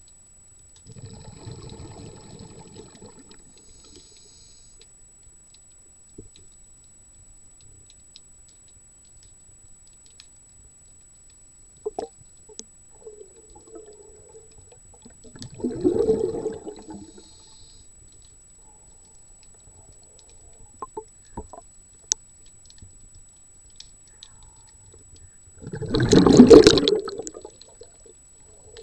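Water bubbling and gushing in three separate bursts, the last near the end the loudest, with little between them.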